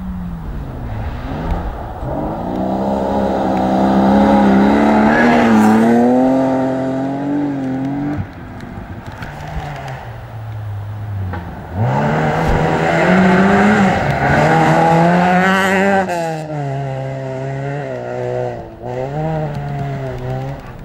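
Rally car engine revving hard on a gravel stage, its pitch climbing through each gear and dropping back at every shift. It is loudest twice, about three to eight seconds in and again about twelve to sixteen seconds in, with a quieter stretch between.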